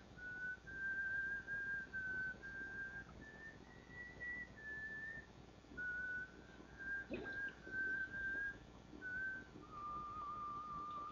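Someone whistling a slow tune, one clear note at a time with short gaps between notes, ending on a longer, lower wavering note. A brief soft knock about seven seconds in.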